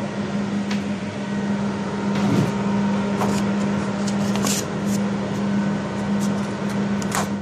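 Fan-Tastic Vent 12-volt roof vent fans running steadily at their highest speed setting, exhausting air with a steady hum. A few brief ticks and rustles occur, the sharpest near the end.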